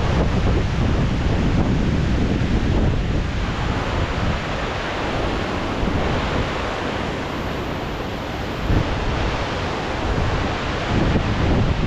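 Strong wind buffeting the microphone in irregular gusts, over a steady rushing hiss.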